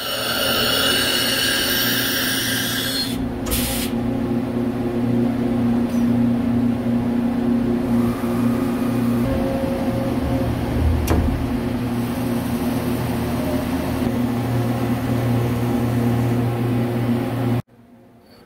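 CNC vertical lathe running with a steady machine hum holding a couple of low tones, with a higher hiss over it for the first three seconds or so. Near the end the sound drops suddenly to much quieter.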